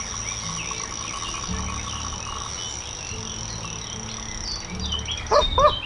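Frogs croaking in repeated low calls over a steady high insect trill from the lake's edge. A short voice-like sound comes near the end.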